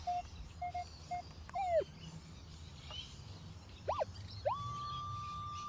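Minelab Equinox metal detector sounding off a coin target: a few short beeps at one pitch, then tones that slide up and down as the coil moves over the spot. Near the end a tone rises and holds steady, the coil sitting right over the buried coin, which lies a bit deeper and off to the side.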